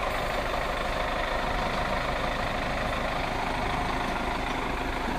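Heavy diesel engine of a wheel loader running steadily, with no change in speed.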